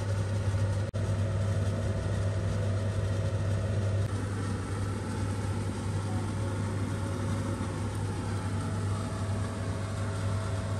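Steady low machine hum of a running kitchen appliance, unchanging throughout, cutting out for an instant about a second in.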